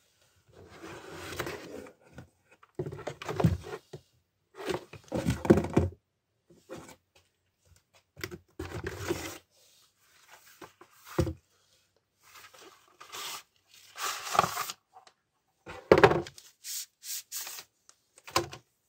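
Cardboard packaging rustling and scraping in short bursts as chainsaw parts are lifted out of the box, with a few dull knocks of plastic against cardboard.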